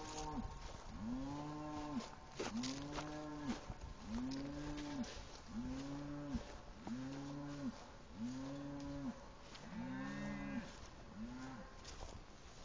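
Cattle mooing: a steady series of about nine short moos, each rising then falling in pitch, roughly one every second and a quarter, stopping about a second before the end.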